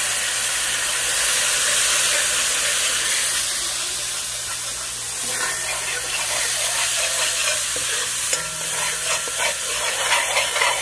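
Onion, garlic, curry leaves and turmeric sizzling steadily in hot oil in a wok, just after a drop of water was added. From about halfway, a spoon stirs and scrapes the pan through the sizzle, with small clicks.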